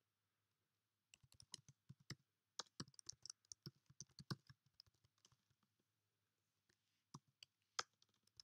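Faint computer keyboard typing: a quick run of keystrokes lasting about four seconds, then a few separate keystrokes near the end.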